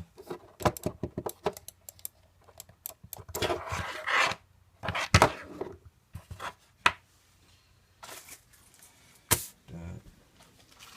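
Scattered clicks and knocks of objects being handled, with a rustle of packaging about four seconds in and a sharp knock near the end.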